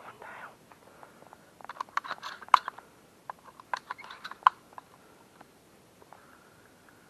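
A brief rustle, then a run of sharp, close clicks and crackles, the two loudest about two and a half and four and a half seconds in.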